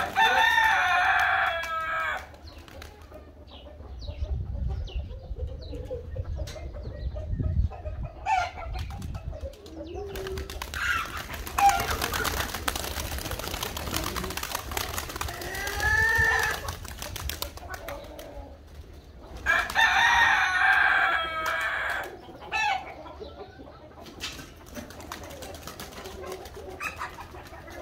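A rooster crows twice, a long crow right at the start and another about two-thirds of the way through, with a shorter call in between. Pigeons' wings flap as birds take off and land, most busily a little before the middle.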